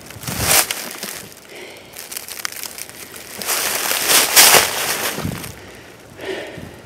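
Footsteps crunching and rustling through dry fallen leaves, in irregular bursts, with the longest and loudest stretch around four to five seconds in.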